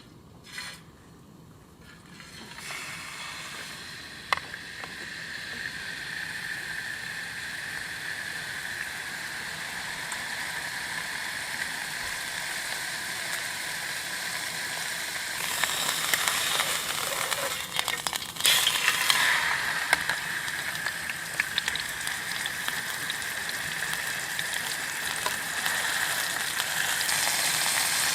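Food frying in a hot pan, a steady sizzle that starts a couple of seconds in and grows louder. Clicks and scrapes come about two-thirds of the way through.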